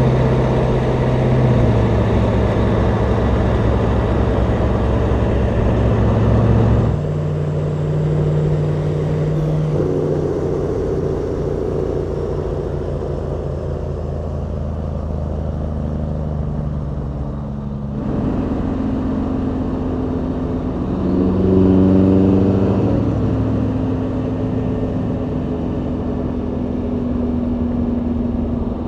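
Diesel engines of vintage semi trucks, a Kenworth and a Brockway, running at highway cruising speed: a steady low drone that jumps abruptly to a new pitch twice as the sound switches from one truck to another, with a brief rise and fall in pitch a little after the second switch.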